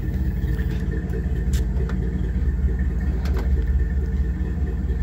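1962 Chevrolet Impala's 283 small-block V8 idling steadily, warming up after a cold start.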